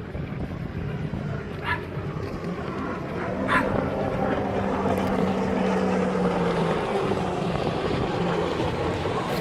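A steady engine drone that grows louder from about three seconds in, with a dog barking twice, about two seconds apart.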